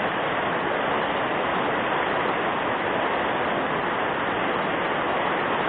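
Fast-flowing river current rushing steadily, an unbroken hiss of water.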